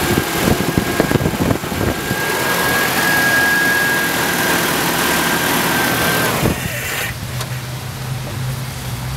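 1987 Nissan D21 pickup's four-cylinder engine running again on its new fuel pump, revved hard with a steady high whine over the engine noise. It drops back to a steady idle about six and a half seconds in.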